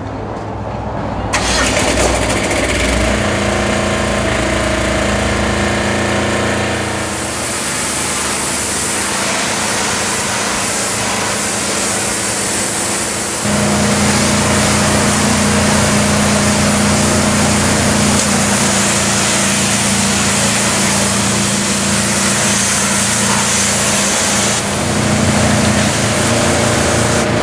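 Engine-driven pressure washer running steadily, its high-pressure water jet hissing as it sprays a brick wall. The sound comes in sharply about a second in, and the engine note shifts and grows louder about halfway through.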